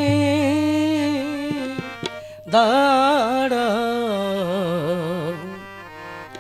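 A solo voice singing a Bengali devotional song to Hari, drawing out long, ornamented notes: one held note that ends about two seconds in, then after a short break a wavering phrase that slides down in pitch.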